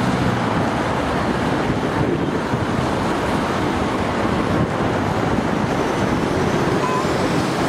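Steady outdoor roar of wind on the microphone mixed with city traffic noise.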